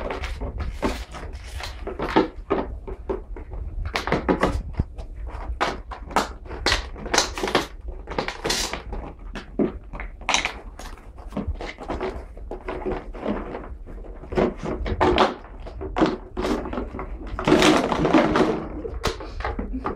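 Irregular knocks, clatter and thuds of household objects, many in quick succession and loudest in a dense cluster near the end, over a steady low rumble.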